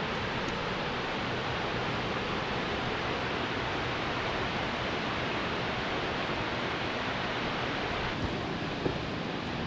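Steady, even rushing of a waterfall, with a couple of small knocks near the end.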